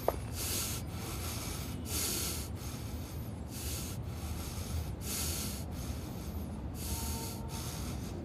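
Heavy, even breathing from a cartoon character, with hissy breaths coming at a steady pace of about three every two seconds, over a low steady hum.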